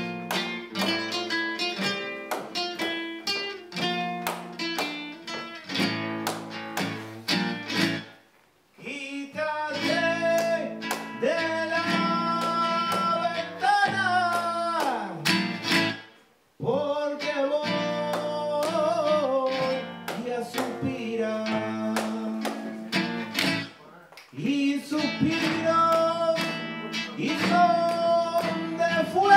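Flamenco acoustic guitar and cante. For the first eight seconds the guitar is strummed and plucked, with sharp percussive hits. After that a singer holds long drawn-out lines with sliding, ornamented notes over the guitar, and the sound cuts out briefly twice along the way.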